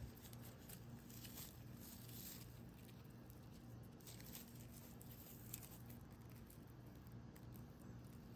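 Near silence: faint rustling and scratching of raffia yarn and a tapestry needle being drawn through tight crochet stitches while a yarn tail is woven in, over a low steady hum.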